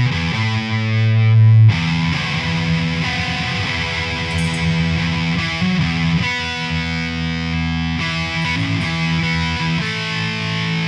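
Hard rock band playing live, with distorted electric guitar riffing; a low note is held in the first second and a half before the full riff resumes.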